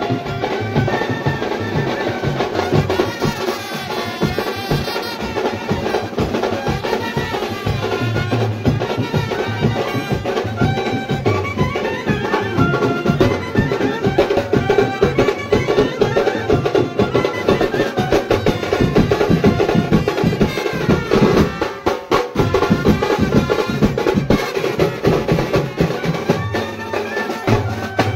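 Mumbai banjo-party brass band playing live: clarinets, trumpet and saxophone carrying a melody over a steady, driving drum beat.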